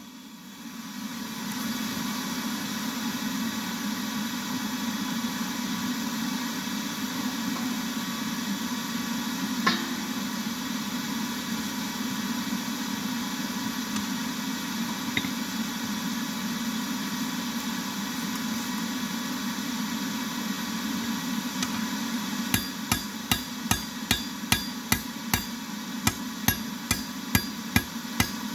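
A forge runs with a steady rushing noise. About three-quarters of the way in, hammer blows on hot steel over an anvil begin: an even run a little over two a second, each with a short metallic ring.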